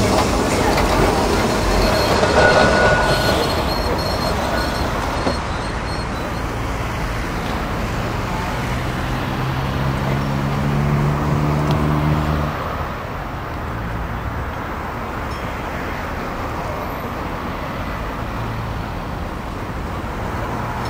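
Blackpool electric tram running, with steady rolling and running noise. About halfway through, a low humming whine rises slightly in pitch for a few seconds, then cuts off suddenly.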